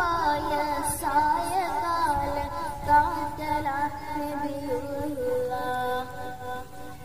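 A child singing a melody, bending between notes at first and holding longer, steadier notes in the second half.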